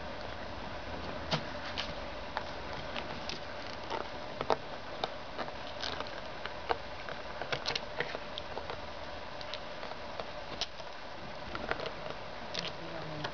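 Jack Russell puppy mouthing and pawing a plastic frisbee: small irregular clicks and taps over a steady hiss.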